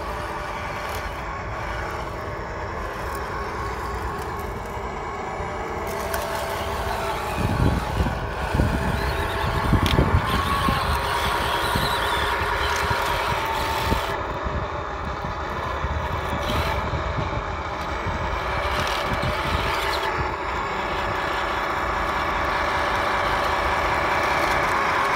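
1/16-scale RC Panzer IV tank running as it crosses rough ground, its engine sound steady and getting louder as it comes closer. There is a stretch of louder, rougher noise about eight to ten seconds in.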